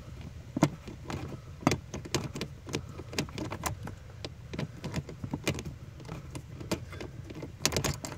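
Irregular small clicks and taps of a hand tool driving in small screws that hold a heater control cable, with a flurry of clicks near the end, over a low steady hum.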